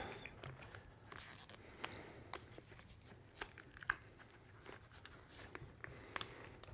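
Faint handling sounds of a silicone casting mold being flexed and worked in the hands to free cured epoxy resin pen blanks, with small scattered clicks.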